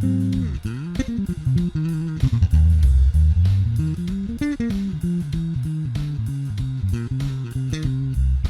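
Electric bass guitar fitted with an active preamp circuit, played solo in a run of quick plucked notes with crisp attacks. There is a falling slide about half a second in and a slide up and back down a little after the middle.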